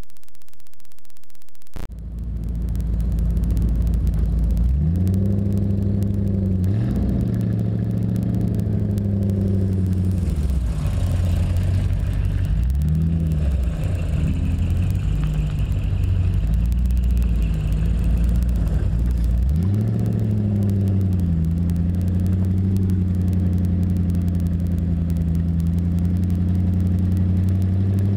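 A car engine pulling away and accelerating through the gears, its pitch climbing and dropping back at each change, then holding steady at a cruising speed, over road and wind rumble picked up by a camera mounted low on the car's side. The first couple of seconds hold only a steady hiss before the engine sound cuts in.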